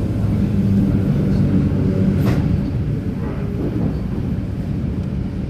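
Red Rattler vintage electric train running: a steady low rumble with a hum, and one sharp click a little over two seconds in.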